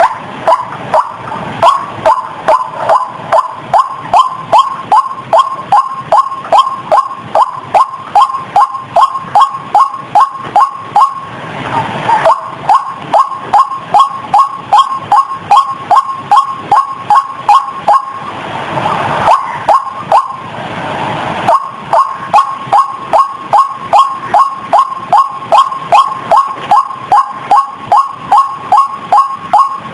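White-breasted waterhen (ruak-ruak) call played as a bird-lure recording: short notes repeated rapidly and monotonously, about two or three a second. The run is twice broken briefly by a rougher, continuous stretch.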